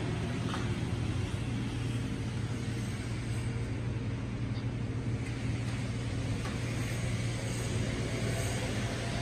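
Steady low hum with an even hiss over it, unchanging throughout: background machinery noise in a shop, like refrigeration or ventilation units running.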